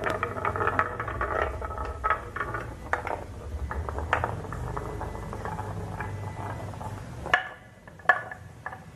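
Marbles rolling down a marble run: a steady rolling rumble with many small clicks and clacks as they hit the track and each other. About seven seconds in the rolling stops with a sharp clack, and a second sharp clack follows a second later.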